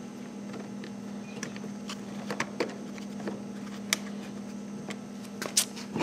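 Scattered light clicks and taps of a new latch cable and fingers against the inside of a Mercury Verado outboard cowling as the cable is routed up and around, a few louder knocks in the middle and near the end, over a steady low hum.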